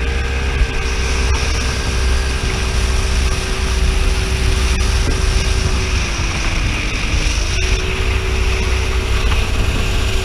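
Speedboat engine running at speed with a steady pitch over a heavy low rumble; the revs sag for a second or so about six seconds in, then come back up.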